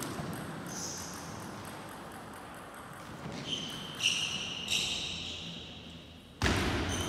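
Table tennis ball struck back and forth between rackets and table in a short rally: a few sharp hits with short ringing pings, echoing in a large hall. A loud voice breaks in suddenly near the end.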